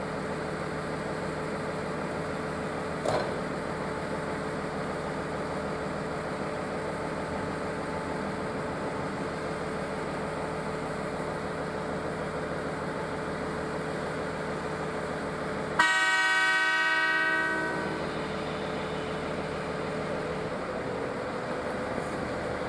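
Train horn of an HB-E300 hybrid railcar ('Kumagera' set) sounding one blast of about two seconds, over the steady hum of the slowly moving train. A short click comes about three seconds in.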